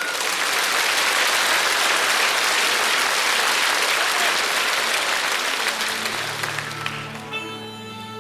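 Studio audience applauding. The applause fades after about six seconds as music comes in with long held notes.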